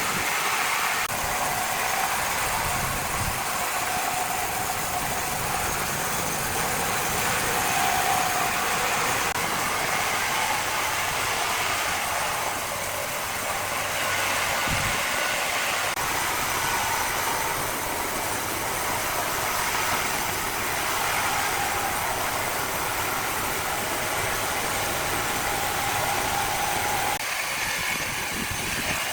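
Engine of a small crane running steadily, with a faint wavering whine over it.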